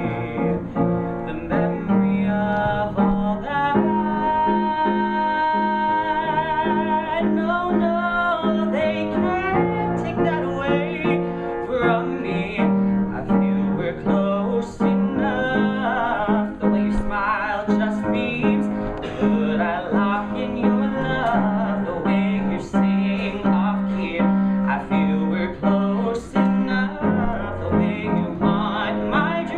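A male singer performing a musical-theatre song with vibrato over piano accompaniment, holding one long note early on.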